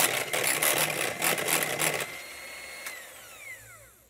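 Electric hand mixer whipping cream in a glass bowl: a steady motor whine, with the beaters rattling against the bowl for the first couple of seconds. About three seconds in the mixer is switched off and its whine falls in pitch as the motor spins down.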